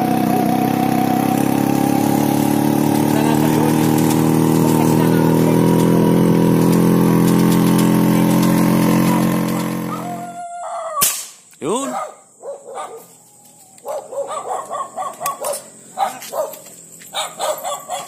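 Motorcycle engine running at a steady speed while riding, cutting off abruptly about ten seconds in. After it come a single sharp snap and dogs barking on and off.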